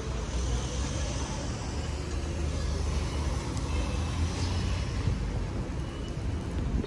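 Street traffic: an SUV driving slowly past close by over a steady low rumble of street noise.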